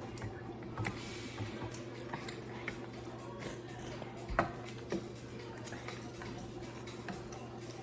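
Eating sounds close to the microphone: scattered small clicks and taps of chewing and mouth noises, the sharpest about four and a half seconds in, over a steady low hum.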